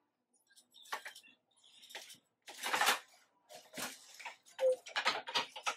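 Wooden boat shuttle passed through the warp of a shaft loom and the loom's beater pulled to beat the weft in: a run of light wooden clicks and knocks with brief swishes of thread, the loudest about two and a half seconds in and again near five seconds.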